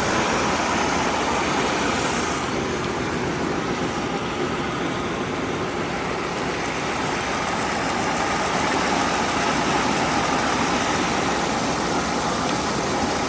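Car running steadily, with an even engine and road noise that holds the same pitch and level throughout.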